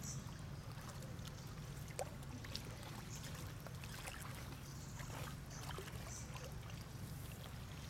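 Pond water splashing and lapping as macaques swim and wade through it, with scattered small splashes and drips and one sharper splash about two seconds in, over a steady low rumble.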